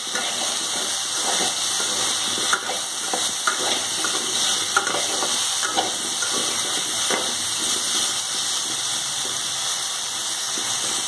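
Potato cubes sizzling steadily in hot mustard oil in a steel kadai, with a metal spatula scraping and clinking against the pan many times as they are stirred.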